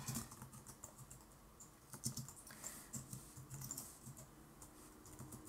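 Faint typing on a computer keyboard: irregular key clicks.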